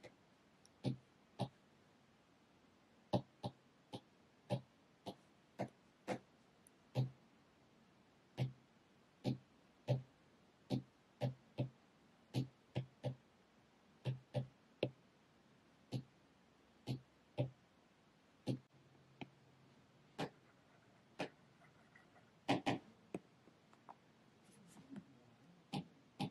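Apple Pencil tip tapping on an iPad's glass screen: short, sharp, irregular clicks, about one or two a second.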